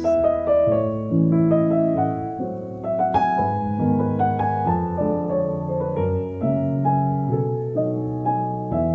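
Solo piano playing an instrumental interlude of a zamba, a flowing run of melody notes over held chords.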